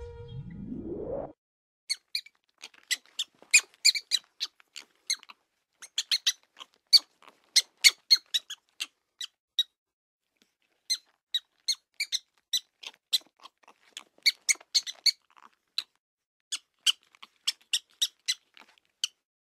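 Prairie dog calling: many short, sharp, high-pitched chirping barks in quick runs of several, with short pauses between runs. A short rising sweep comes first, in the opening second.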